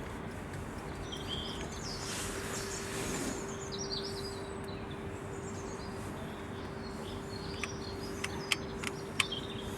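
Small birds chirping over a steady low hum, with a few sharp clicks near the end.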